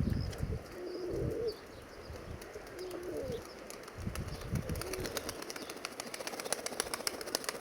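Nikolaev pigeons cooing, several short low coos, with faint rapid clicking in the second half.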